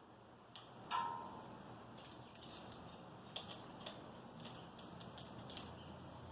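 Small metal hardware clinking and clicking as it is handled, one piece striking with a brief metallic ring about a second in, followed by a run of light irregular clicks.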